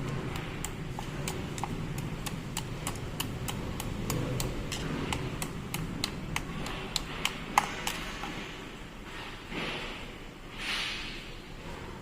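Sharp clicks at a steady pace, about three a second, for about eight seconds, then two short swishes near the end.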